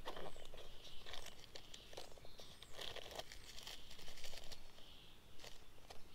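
Crinkling of a foil packet and rustling of a fabric pouch on a rifle stock as it is opened and handled, in many short irregular rustles and clicks.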